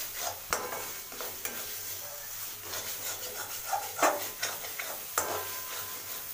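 Metal spatula scraping and stirring thick masala paste frying in a metal kadai over a steady sizzle. Several sharper clanks of the spatula against the pan come about half a second, four seconds and five seconds in.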